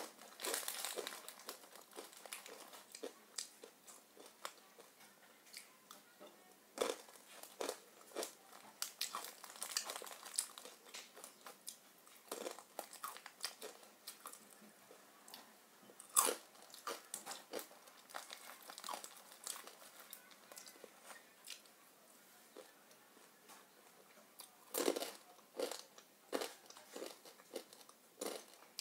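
Irregular crackling and rustling close to the microphone, with short sharp clicks scattered through, a few louder ones about 7, 16 and 25 seconds in.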